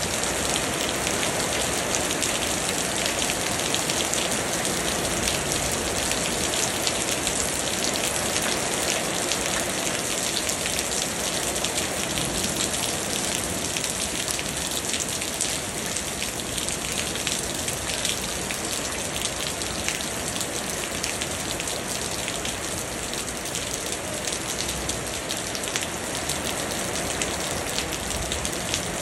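Steady rain falling on wet ground and puddles: a dense, even hiss made of many small drop hits.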